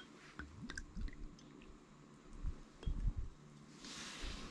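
Sake being poured from a glass bottle into a small wooden cup, with a few faint glugs and clicks, then soft low knocks from the bottle and cup being handled.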